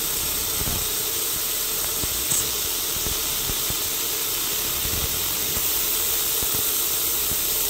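Fiber laser marker firing continuously at one spot on an aluminium plate: a steady, loud hiss as the beam ablates a hole into the metal.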